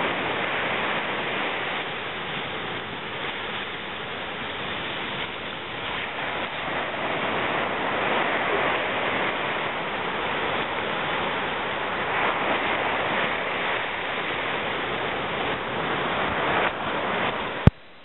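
Ocean surf breaking and washing up a sandy beach: a steady rushing noise that swells and eases. A sharp click near the end, after which the sound drops away.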